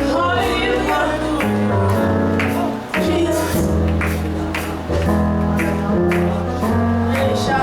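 Gospel-style music with sustained organ or keyboard chords, a steady bass line and a regular drum beat.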